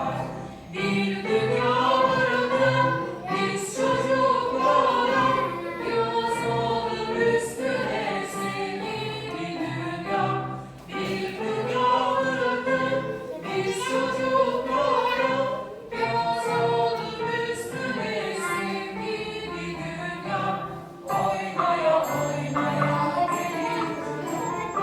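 Background music: a song sung by a group of voices over an instrumental accompaniment, in phrases of a couple of seconds.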